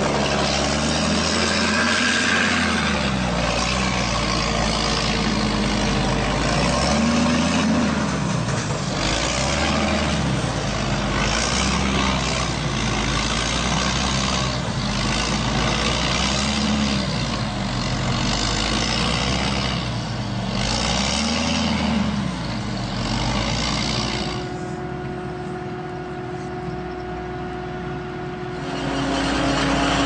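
Heavy diesel engine of farm machinery, revving up and down every few seconds, as if working hard in the mud. About four seconds from the end it drops to a quieter steady hum, then picks up again.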